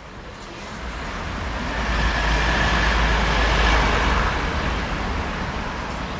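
Street traffic: a car passes close by, its noise swelling over the first four seconds to a peak and then easing off, over a low rumble.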